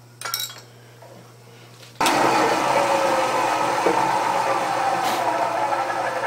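A short metallic clatter, then about two seconds in a milling machine starts and runs loudly and steadily, taking a boring cut in a cast-iron arbor housing.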